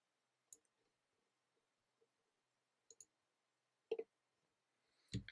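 Near silence, broken by about five faint, scattered clicks of a computer keyboard, the last two a little louder.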